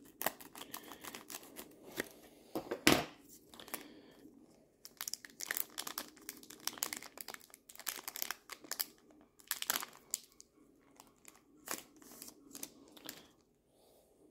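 Foil wrapper of a Magic: The Gathering booster pack crinkling and crackling as it is snipped open with scissors and handled, in irregular sharp crackles, the loudest about three seconds in.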